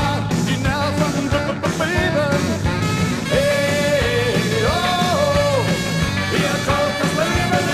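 German new wave rock song: the band plays a steady beat with a melodic lead line gliding between notes.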